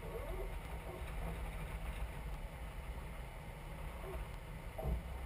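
Four-wheel-drive vehicle driving over desert sand dunes: a steady low rumble of engine and wind noise, with one short thump near the end.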